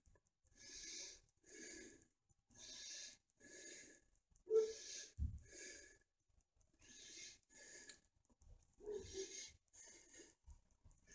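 A person's breathing close to the microphone, faint and regular, about one breath a second, with a single low thump about five seconds in.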